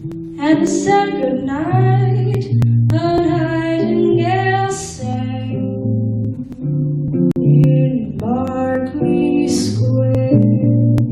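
A female voice sings with an acoustic guitar playing chords and bass notes in a slow jazz ballad. There are three sung phrases.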